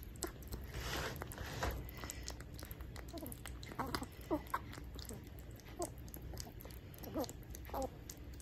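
Kitten lapping and chewing wet weaning food (milk mixed with kitten food) from a metal bowl: irregular small wet clicks and mouth smacks.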